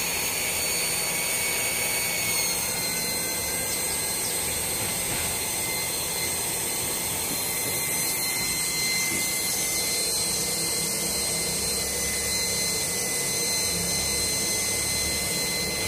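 Gas-liquid mixing pump running steadily: a high electric-motor whine over water splashing from its outlet pipe into a tub, the water coming out milky with fine air bubbles. The whine dips slightly in pitch about two seconds in.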